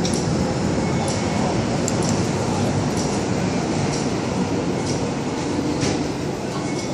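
MTR M-Train electric multiple unit pulling out of an underground station behind platform screen doors: steady rumble of motors and wheels on the track, with a few light clicks, easing off slightly near the end as the train goes into the tunnel.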